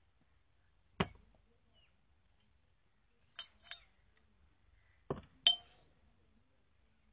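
Small glass liquor bottles being set down one by one on a table. There are five sharp knocks and glass clinks spread across a few seconds, and the last and loudest one rings briefly.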